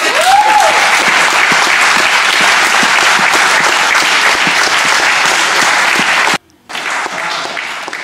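Applause: many hands clapping, with a short shout about half a second in. It cuts out for a moment a little after six seconds, comes back, and dies away near the end.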